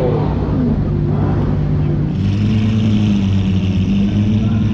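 Car engine running at a steady pitch. About two seconds in the pitch steps up and a hiss joins.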